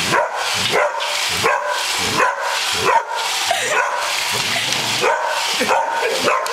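Dog barking repeatedly at a running Roomba robot vacuum, with short yappy barks that rise and fall in pitch, a little more than one a second. A steady whir from the vacuum runs underneath.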